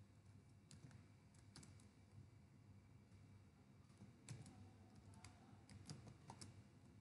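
Faint computer keyboard typing: a few scattered keystrokes near the start, then a quicker run of keystrokes in the second half, over a low steady room hum.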